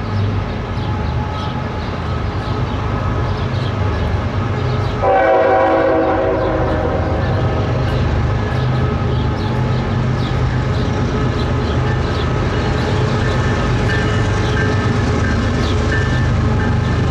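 CSX diesel freight locomotive running as it approaches, its engine a steady drone, with wheels clicking over the rail joints. About five seconds in it sounds its horn, loudest for the first couple of seconds.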